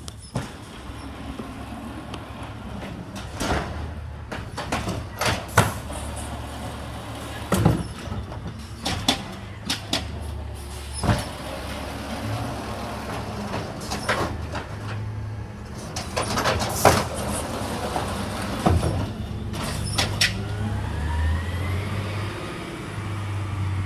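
Garbage truck's diesel engine running with a steady low drone, broken by a series of sharp clanks and bangs. Near the end a whine rises in pitch.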